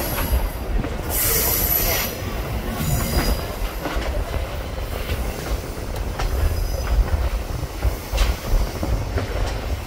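Passenger train cars rolling on the rails through a curve with a steady low rumble, and a high wheel squeal about a second in that comes back more faintly near three seconds.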